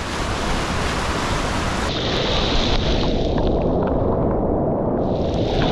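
Whitewater rapid rushing loudly and steadily. About two seconds in, the hiss drops away and the rush turns muffled, brightening again a little near the end.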